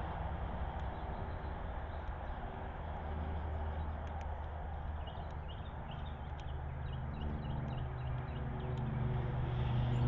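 A steady low engine hum that grows louder near the end, with scattered small clicks of a northern cardinal pecking seed on the ledge and a run of faint bird chirps in the second half.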